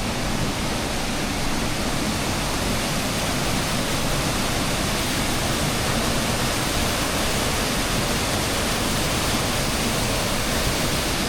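The St Nectan's Glen waterfall pouring steadily: a dense, even rush of falling water with no breaks, really noisy up close.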